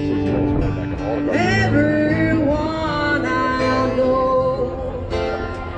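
Music: a country-style song with a singing voice and guitar.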